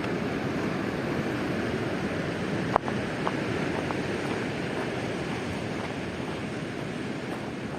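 Steady rush of ocean surf, with a single sharp click a little under three seconds in and a few faint ticks after it.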